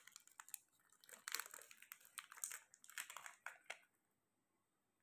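Faint crinkling and small clicks of hands handling modelling clay and plastic clay moulds, scattered through the first few seconds and stopping near the end.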